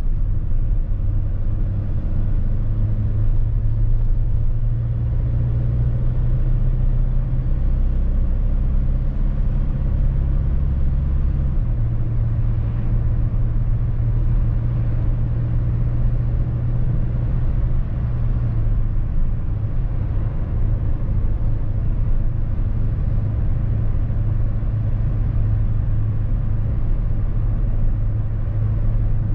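Mercedes-Benz Sprinter van driving, heard from the cab: a steady low engine drone and road noise, with the engine note stepping in pitch a couple of times as its speed changes.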